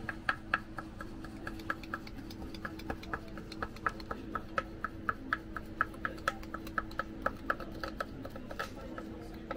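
Knife chopping boiled lamb head meat on a wooden cutting board: quick, even knocks of the blade on the wood, about three or four a second, with a short pause about two seconds in.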